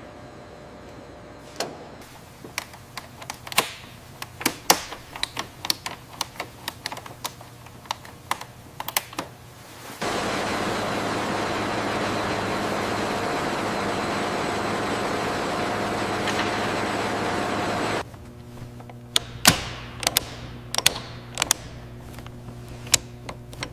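Scattered sharp clicks and taps of hand tools working metal parts. About ten seconds in, a steady loud rushing machine noise with a low hum takes over for about eight seconds and stops suddenly, and the clicks return over the hum.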